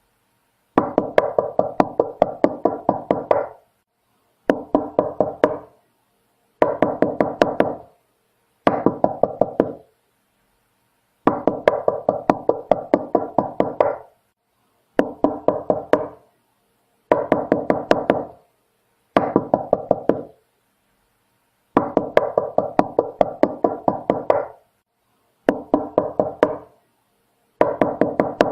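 Knocking on a door in repeated rapid series of raps, about five knocks a second. The series run one to three seconds each with pauses of about a second between them, and each series rings on briefly after the last knock.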